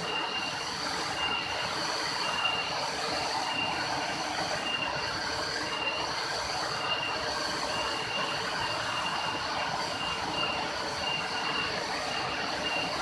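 Steady rushing of a waterfall, with a short high-pitched call repeating about once a second over it.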